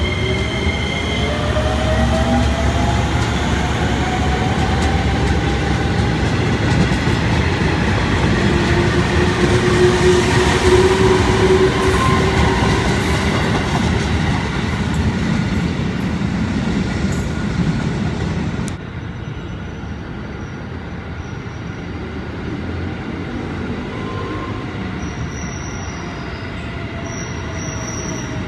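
JR 205-series electric commuter trains running through a station: heavy rumble of wheels on rail with a motor whine that rises in pitch as a train accelerates. About two-thirds in the sound drops suddenly to quieter running, and high-pitched squeals come near the end.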